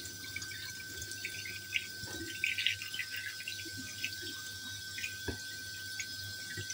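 Kitchen tap running into a sink, with light splashes and a few small knocks as a fish is cleaned under the water.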